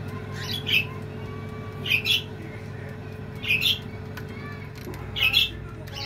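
Kumtel countertop electric oven running with a steady hum from its rotisserie motor and fan. Over it come short, high squeaky chirps about every second and a half.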